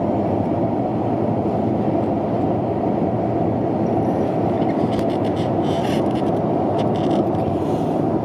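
Steady road and tyre noise of a car driving at highway speed, heard from inside the cabin.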